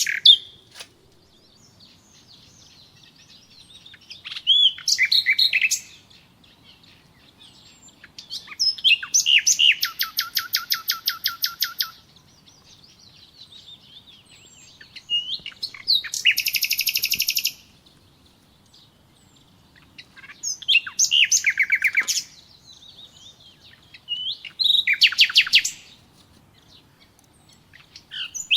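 A songbird singing repeated phrases, one every few seconds, each a run of quick high notes that often ends in a fast trill, with short pauses between.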